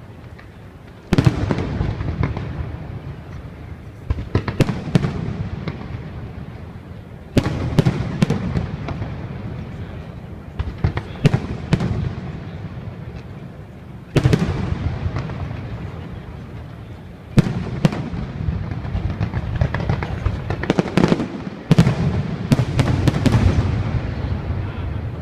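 Enigma Fire fireworks going off: a series of sharp bangs every few seconds, each trailing off into a rumbling crackle, with several quick bangs close together near the end.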